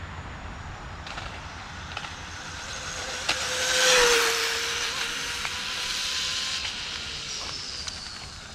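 Rlaarlo AK-917 RC car with a brushless motor speeding past on asphalt: a rush of tyre hiss and motor whine swells to a peak about four seconds in, its whine dropping slightly in pitch as it passes, then fades away.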